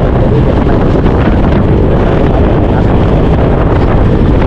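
Loud, steady wind noise on the microphone of a moving motorcycle, a low rumble with no breaks.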